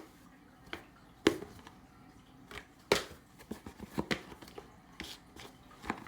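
Scattered light clicks and knocks at irregular intervals, with the two loudest about a second and three seconds in.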